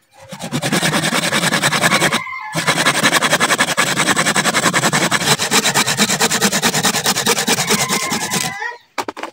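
A large hand saw cutting through the living trunk of a sancang (Premna) bonsai in rapid back-and-forth strokes, pausing briefly after about two seconds, then stopping shortly before the end as the cut goes through, followed by a couple of sharp clicks.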